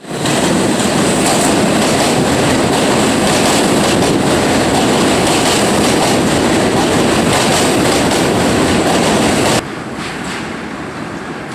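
A train running past, a loud steady rumble that cuts off suddenly about nine and a half seconds in, leaving a quieter background.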